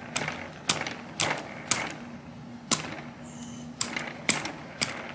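Sharp, irregular clicks and taps, about eight in all, as a cleaning rod with an oiled patch on a jag is worked through the barrel of a small .22 pistol, the rod knocking against the frame and barrel.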